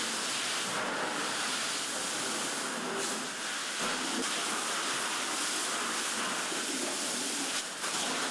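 Steady hiss of water spray and steam on a smouldering house fire, holding level throughout, with a brief dip near the end.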